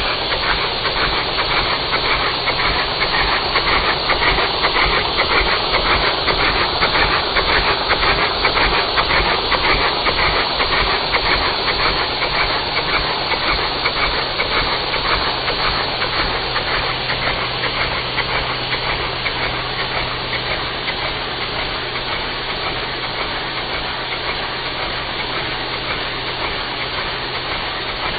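LEGO oscillating flat-four vacuum engine running on vacuum cleaner suction: a steady rush of air with a low hum, and a fast clatter from the four swinging plastic cylinders. The clatter eases off somewhat in the second half.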